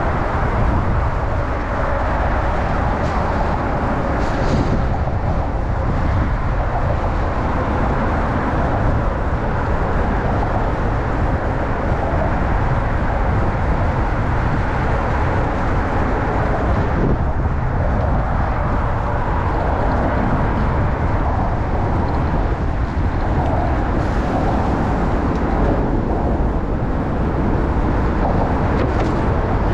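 Strong wind buffeting a chest-mounted camera's microphone on a moving bicycle: a loud, steady rumbling rush, heaviest in the low end, with street and traffic noise underneath.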